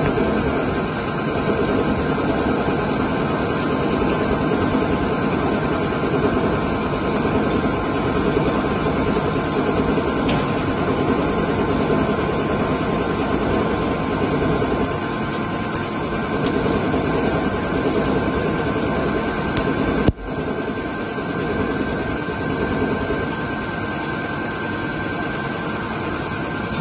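ALDOOSANLE CNC lathe machining under flood coolant: a steady mix of the spindle running, the cut and the coolant spray. One sharp click about three-quarters of the way through.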